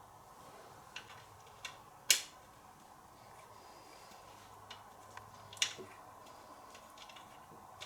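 A few scattered clicks and taps of hand tools and a bolt being worked in a footpeg bolt thread, the loudest about two seconds in, over a faint steady hum.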